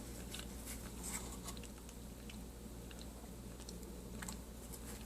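Close chewing and crunching of a chunk of cornstarch: faint, irregular crisp crackles.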